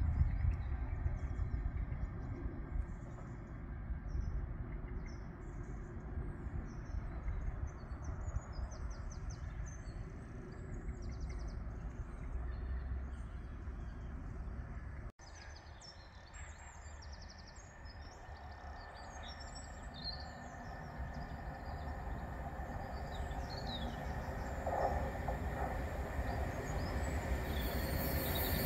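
Low rumble of a train easing away, with small birds chirping over it. After a sudden cut, another train is heard approaching, growing steadily louder with a rising hum near the end.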